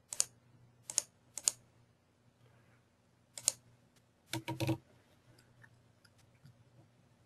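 Clicks of a computer mouse and keyboard: a few single sharp clicks, then a quick cluster of clicks about four and a half seconds in, over a faint steady hum.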